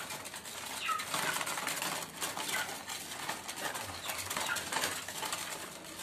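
Brown paper bag crinkling and rustling as it is unwrapped and untied by hand, with short bird chirps about once a second.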